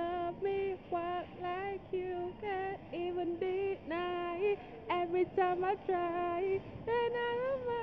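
A woman singing aloud a made-up tune in a run of short held notes that step up and down around one pitch.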